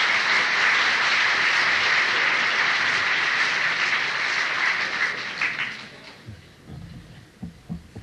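Audience applauding after a punchline, a dense steady clatter of many hands that dies away about six seconds in, heard through an old cassette recording.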